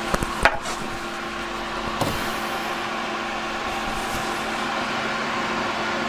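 Steady whirring hum of a small motor or fan. A few sharp clicks come in the first half second, and another comes about two seconds in.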